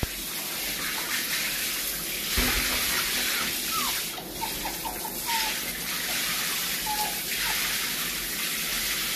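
Shower head spraying a steady stream of water onto a tiled floor and wall, with an even hiss throughout. A thump comes a couple of seconds in, and a few short, faint squeaks follow in the middle.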